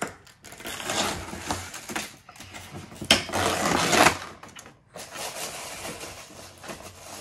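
Toy packaging crinkling and rustling as it is handled and torn open by hand, loudest for about a second some three seconds in.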